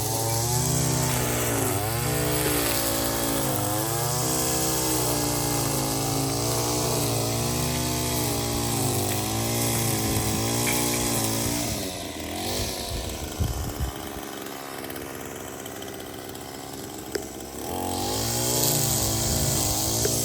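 A small engine running with its speed rising and falling. About twelve seconds in it drops to a lower, quieter note, with a couple of sharp knocks, and it speeds up again near the end.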